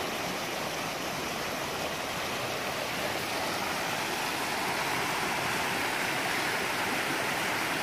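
Fast-flowing mountain stream rushing steadily over rocks and small rapids, growing a little louder about three seconds in.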